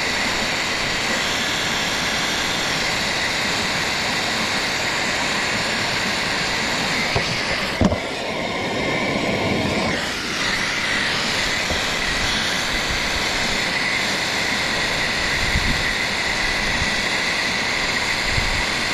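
Handheld gas soldering torch burning with a steady roaring hiss, its tone shifting briefly about eight seconds in.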